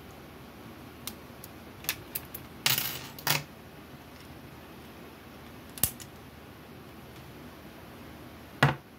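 Steel lock picks and a tension wrench clicking and rattling against a clear acrylic practice padlock: a few scattered clicks, a short rattle just under three seconds in, a single sharp click near the middle and another clatter near the end.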